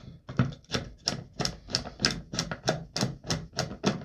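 Steady run of sharp clicks, about three a second, from the adjustment screw on an Umarex Gauntlet air rifle's plastic buttstock as it is turned by hand.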